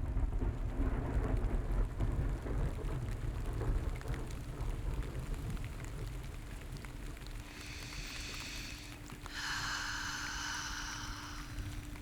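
Steady rain ambience fading in, with a deep low rumble strongest in the first few seconds. From about the middle a faint steady low tone joins, and near the end two high sounds with several tones, each lasting a second or two, come in one after the other.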